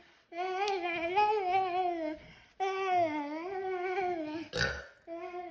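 A high voice holding long, wavering drawn-out wails, three in a row of about two seconds each, with a short sharp breath between the second and third.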